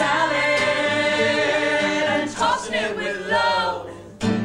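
Several voices singing a show tune together, holding long notes, with a brief dip in the singing near the end.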